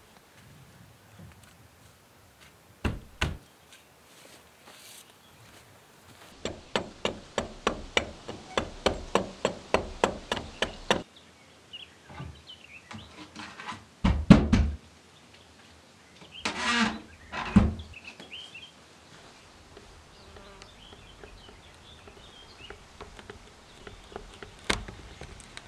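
Wooden knocks and heavy thumps of cut log sections being set into a window frame, with a run of rapid, even clicks, about five a second, in the middle. Faint insect and bird chirping in the background.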